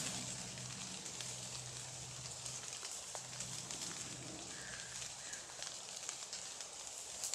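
Steady outdoor hiss with faint scattered crackling ticks and a faint low hum. Two faint short calls come about four and a half and five seconds in.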